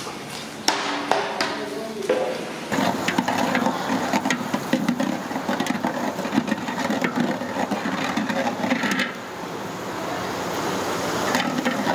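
Chicken sizzling and crackling in a large metal pot over a wood fire, densest from about three seconds in and easing off near the end. In the first couple of seconds a metal ladle knocks a few times against the pot.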